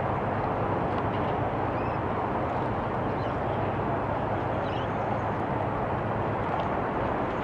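Steady outdoor background noise with a few faint, high chirps over it.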